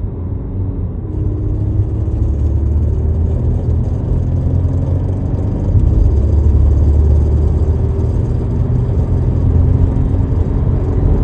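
Audi A5 accelerating: a steady low engine and road rumble, with the engine tone rising in pitch, once early on and again later, and the overall level building.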